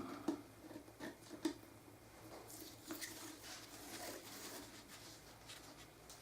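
Faint rustling and handling of packaging being unwrapped, with a few soft clicks and taps in the first second and a half.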